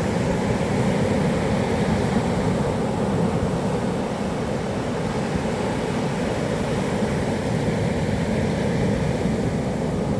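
Steady roar of heavy surf breaking on a beach, big waves driven by a typhoon swell, with no single wave standing out.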